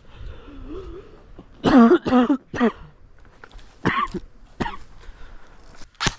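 A person's short, throaty vocal sounds: a quick run of three or four about a second and a half in, then single ones near four and five seconds. A sharp click comes just before the end.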